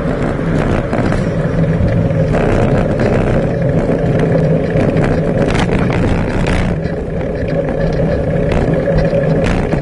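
Steady rumble of wind and tyre noise picked up by a bicycle-mounted camera riding over tarmac, with scattered knocks and rattles from bumps in the path.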